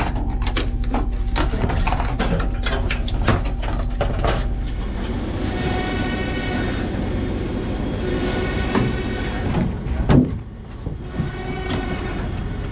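Dirt late model race car being pulled out of an enclosed trailer on a winch cable: metal rattling and clanking over the diamond-plate deck, then a steady whirring through the later part with a loud clunk about ten seconds in, over a constant low hum.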